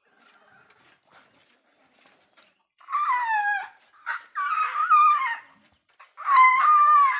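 Asian elephant calf calling: three loud, wavering squeals of about a second each, starting about three seconds in, which the keeper puts down to hunger. Faint hen clucking comes before them.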